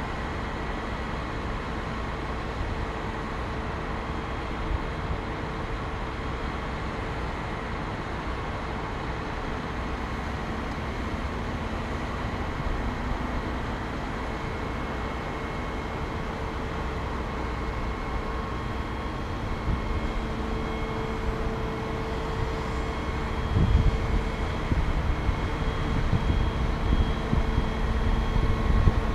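Aerial ladder fire truck's engine and hydraulics running with a steady hum. Wind buffets the microphone on the raised ladder for the last several seconds.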